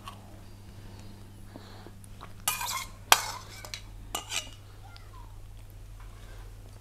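Metal spoon clinking and scraping in a small steel bowl: a few light clicks and taps between about two and a half and four and a half seconds in, over a faint low hum.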